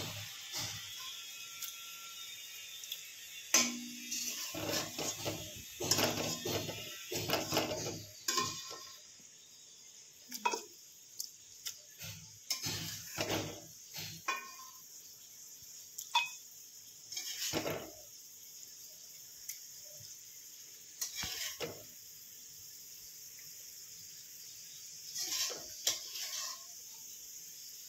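Metal kitchen utensils clinking and knocking against a cooking pot in irregular, scattered strikes, over a faint steady hiss.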